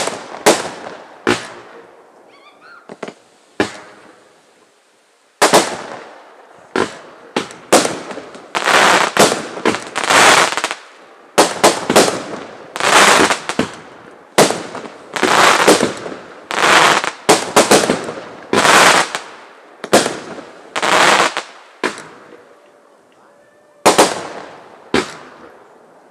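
Fireworks going off: a few single bangs in the first seconds, then a rapid barrage of shell bursts and crackling reports from about five seconds in until about 22 seconds, each bang trailing off, with a last bang or two near the end.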